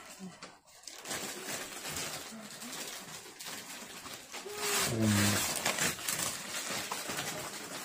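Wrapping paper rustling and tearing as a large gift box is unwrapped, loudest a little after halfway. A brief, low, falling vocal sound comes about five seconds in.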